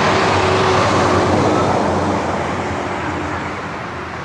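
Engine and rushing noise of a passing vehicle. It is loudest in the first two seconds and then fades away.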